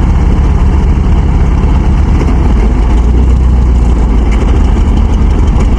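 Farm machine engine running loud and steady, a deep, unbroken drone under strain, as the machines try to pull the mired rice harvester out of the mud.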